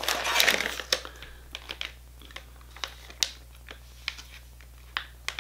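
Plastic bait packaging being handled in a cardboard box: a burst of rustling and crinkling in the first second, then scattered light clicks and crinkles.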